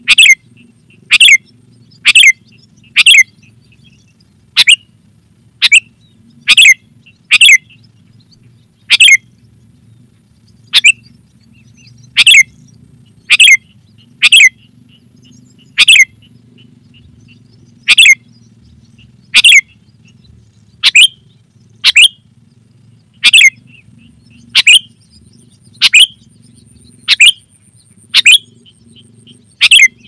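Sooty-headed bulbul (kutilang) giving short, sharp call notes, about one a second at uneven spacing, loud and clear.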